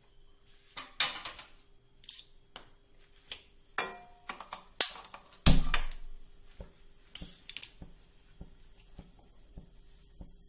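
Scattered clicks and knocks of kitchen handling around a frying pan of water heating on a gas stove, the loudest about halfway through, followed by faint light ticks about twice a second.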